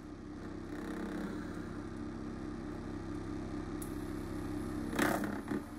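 Homemade tin-can thermoacoustic heat engine with a glass-bead core running on an induction hob, making a steady, engine-like buzzing drone. A short clatter comes about five seconds in.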